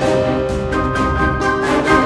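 Orchestral background music with strings and brass laid over the footage; a higher held chord comes in about three-quarters of a second in.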